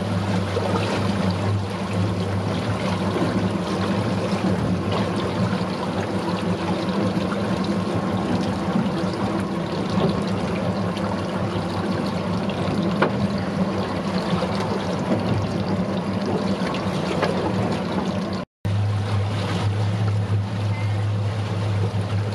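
Boat engine running steadily with a low hum over a hiss of water and wind. The sound cuts out for a moment about three-quarters of the way through, then resumes unchanged.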